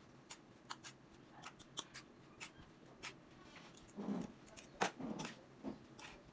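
Faint, irregular sharp clicks of vegetables being cut by hand over a steel mixing bowl, with a few duller knocks about four to five seconds in.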